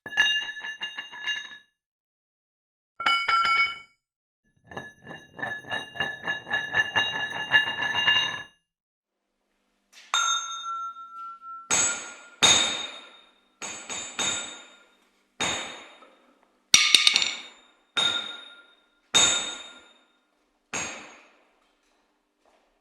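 A string of separate ringing chime and ding sound effects: first three bursts of rapid jingling with bright ringing tones, then a held ringing tone and about nine single struck dings, each fading out within a second.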